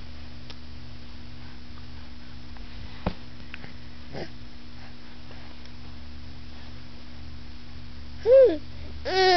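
Baby squealing twice near the end, first a short rising-and-falling squeal, then a longer wavering one. Before that there is only a steady low hum and a soft click.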